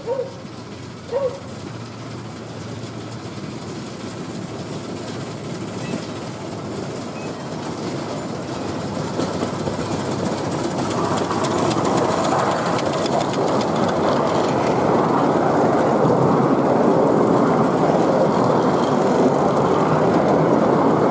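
Miniature railway train passing close by: a small steam locomotive hauling open passenger coaches. The rumble of its wheels on the rails swells steadily as it approaches and stays loud as the coaches run past. Two brief high calls sound right at the start.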